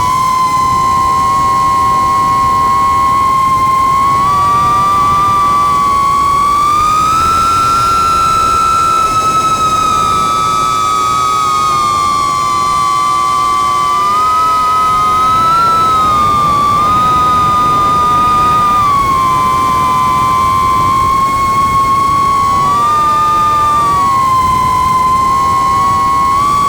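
FPV racing quadcopter's brushless motors and propellers whining in flight, the pitch sliding up and down with the throttle. Two close tones weave around each other at times, as the motors spin at slightly different speeds.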